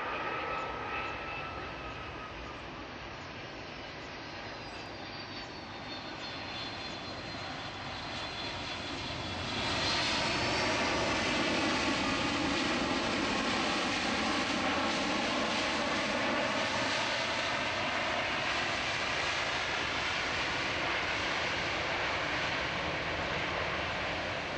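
Boeing 757's twin jet engines running at high power as the airliner moves along the runway past the listener, likely on its take-off roll. A whine falls slightly at first, then the engine noise grows sharply louder about ten seconds in, with several whining tones, and stays loud.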